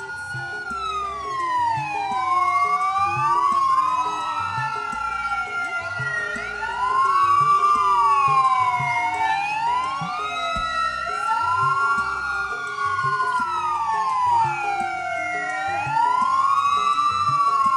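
Several sirens wailing together, each sliding slowly down and back up in pitch and out of step with the others, so the wails overlap and cross continuously.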